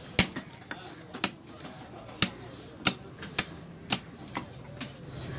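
Heavy fish-cutting knife chopping white sea catfish on a wooden block, one sharp knock about every half second, about nine in all.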